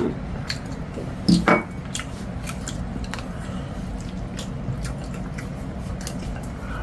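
Quiet table sounds of a meal: light clicks of chopsticks against ceramic bowls and plates, and chewing, over a low steady hum. A brief murmur of a voice comes about a second and a half in.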